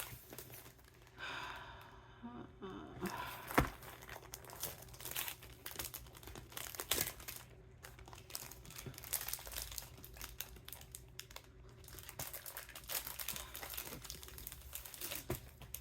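Plastic packaging of a diamond painting kit crinkling and rustling as it is handled, with irregular small clicks and one sharper snap about three and a half seconds in.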